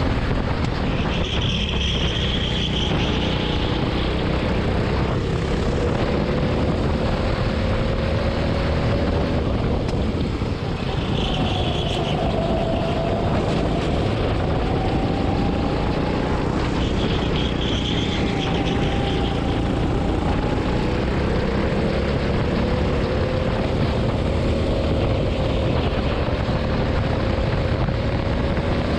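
Go-kart engine running flat out, heard on board, its pitch climbing slowly as the kart accelerates down the straights and dropping back into the corners, under heavy wind rush on the microphone. Three brief higher-pitched sounds come and go along the way.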